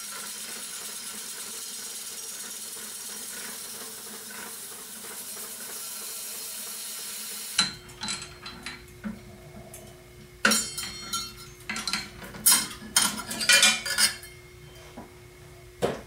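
Abrasive paper hissing steadily against a circular saw blade spinning in a drill press chuck, stopping about seven and a half seconds in. Then metal clicks and rattles come as the chuck is loosened with its chained chuck key.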